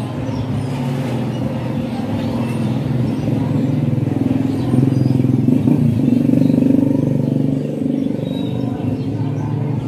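A motor vehicle engine running steadily. It grows louder about halfway through and eases off again near the end.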